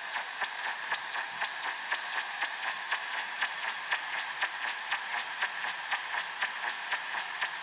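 Odd pulsing signal received on an Eton E5 shortwave radio in the 25-metre band: an even train of sharp pulses, about five a second, over steady static hiss.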